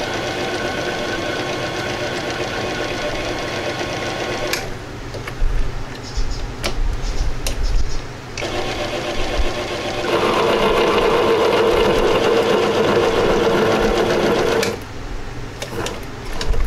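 Mini lathe running with its change gears engaged, cutting threads on a stainless steel screw blank. The motor and gear train run steadily and stop about four and a half seconds in, with a few sharp metallic clicks and knocks. From about ten seconds the lathe runs again, louder, until about fifteen seconds, and then more clicks follow.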